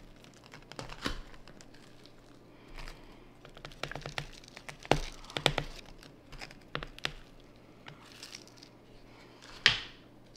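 Hands working potting soil around a begonia in its pot during repotting: irregular rustling and crinkling with scattered clicks and taps, the loudest near the end.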